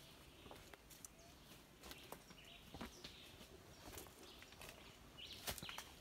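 Faint footsteps and scuffs on dry leaf litter and rock, with a few faint bird chirps in the background.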